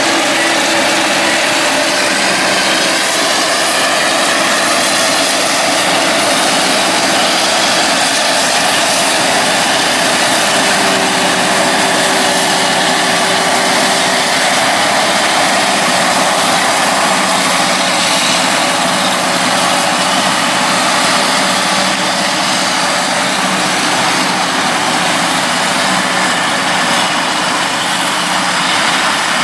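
Forage harvester running steadily while chopping maize: a continuous, loud engine and machine drone with no break.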